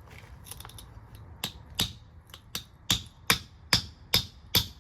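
Hammer blows on a metal exhaust hanger, spreading it to fit a larger pipe. Sharp, ringing metallic strikes, a few scattered at first, then settling into a steady beat of about two and a half a second.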